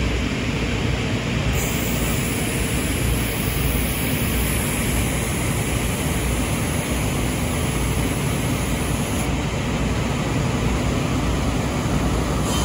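Timesavers industrial planer sander and its infeed conveyor running: a steady, even machine noise with a low hum underneath, unchanging throughout.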